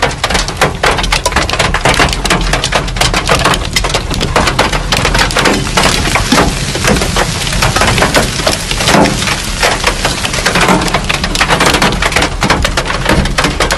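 Hailstones pelting a vehicle's roof and hood, heard from inside the cab: a loud, dense, continuous clatter of hard impacts.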